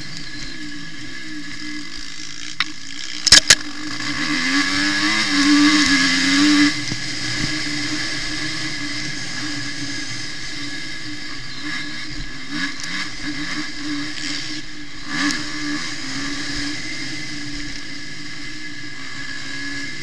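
Suzuki RM-Z250 motocross bike's single-cylinder four-stroke engine running under load on a dirt track, its pitch rising and falling as the throttle is worked, with a steady hiss over it. Two sharp knocks stand out about three and a half seconds in, followed by a few seconds of harder revving.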